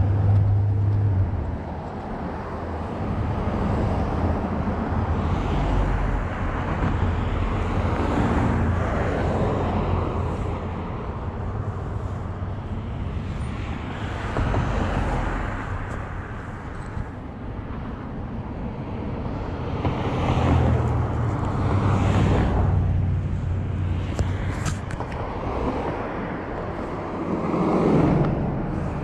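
Road traffic at an intersection: cars passing, their noise swelling and fading several times over a steady low rumble.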